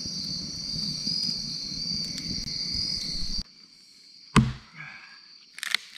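Insects shrilling steadily in the evening woods over a crackling campfire, cut off about three and a half seconds in. A single loud knock follows about a second later, with a few lighter clicks near the end.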